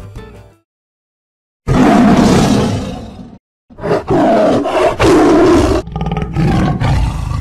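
Lion roaring three times, the roar of the MGM film-studio logo, each roar loud and rough with short gaps between them.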